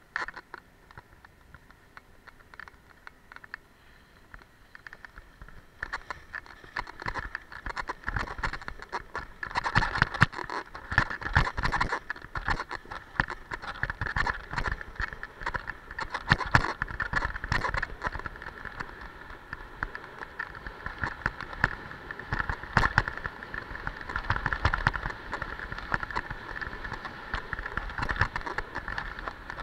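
Skis scraping and chattering over packed snow during a descent, heard through a body-worn camera, with many sharp scrapes and knocks. It is quieter for the first few seconds and gets busy and louder about six seconds in.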